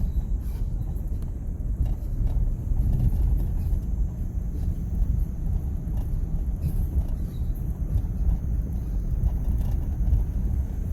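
2001 Ford F-150's engine running with a steady low rumble; the truck is sold as a mechanic special with a misfire.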